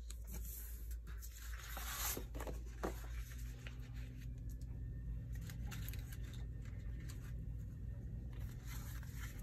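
Sheets of scrapbook paper and cardstock rustling and sliding over a cutting mat as they are shifted and picked up, in irregular bursts, with a sharp tap about three seconds in.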